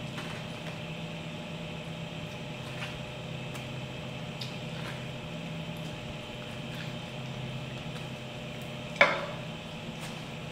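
Faint ticks of someone biting and chewing corn kernels off the cob over a steady background hum, with one sharp click about nine seconds in.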